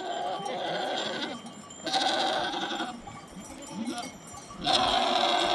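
Sheep bleating: three separate drawn-out bleats, each about a second long, near the start, about two seconds in and near the end.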